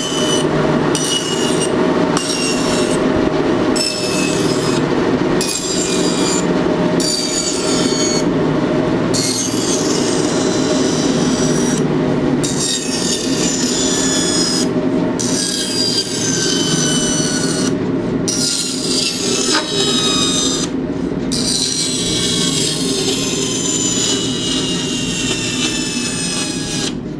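Small gasoline engine driving a Tannewitz bandsaw through a centrifugal clutch and belt, running steadily while the blade cuts a block of wood. High squealing tones ride over the engine, slowly shifting in pitch and breaking off every second or two.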